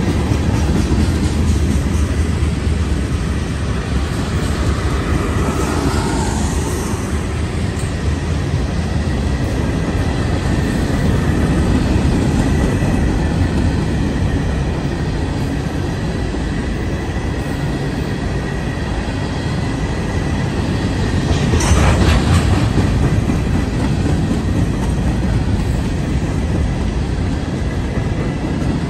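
Freight train of covered hopper cars rolling past: a steady rumble of steel wheels on the rails, with one sharper clank about two-thirds of the way through.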